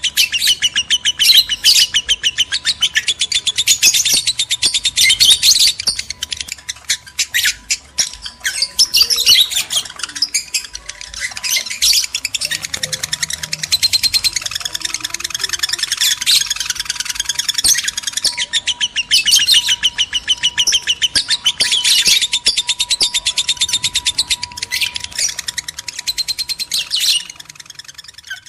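Lovebirds chattering in fast, shrill, continuous bursts of rapid call notes, the excited calling used as a breeding prompt to bring lovebirds into mating condition.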